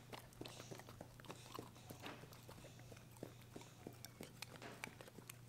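Pit bull puppy chewing a cracker: faint, irregular crunchy clicks, several a second, over a faint steady low hum.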